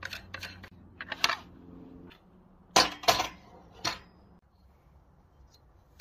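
Handling of a metal-and-plastic mitre-saw stand: a quick run of sharp clicks from its clamp levers and fittings, then a clatter, then three loud knocks as a timber plank is set down on the stand.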